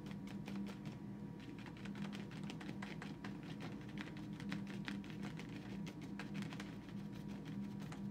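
A paintbrush dabbing watercolour onto paper in quick, irregular taps, several a second, over a steady low hum.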